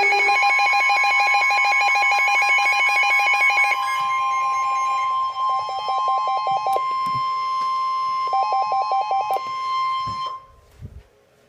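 NOAA Weather Radio warning alarm tone: one long, steady, high tone that cuts off about ten seconds in, signalling that a warning message follows. Rapid pulsing electronic beeps sound over it for the first few seconds and twice more in short stretches.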